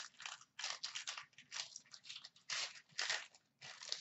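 Hockey trading cards being slid off a stack one after another by hand, a dry card-on-card swish about two or three times a second.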